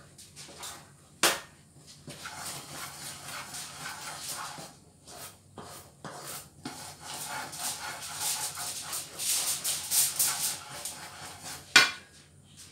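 Wooden spatulas stirring and scraping thick, sticky ube halaya and a simmering brown-sugar and coconut mixture in nonstick pans, with repeated clatter of wood against the pans. Two sharper knocks, about a second in and near the end, are the loudest sounds.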